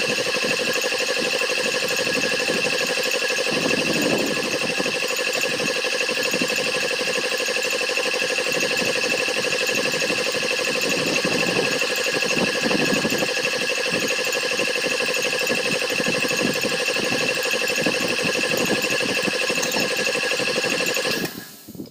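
Old piston air compressor running steadily as it pumps up its tank, then shutting off abruptly near the end as its pressure switch cuts out at 100 PSI.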